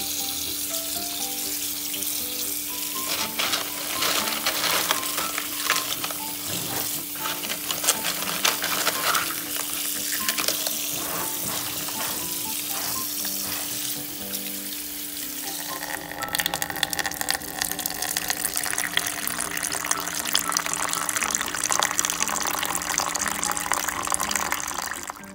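Tap water pouring over cockles in a plastic colander as they are rinsed; about sixteen seconds in the sound of the stream changes, and near the end it runs into a pot. Soft background music plays underneath.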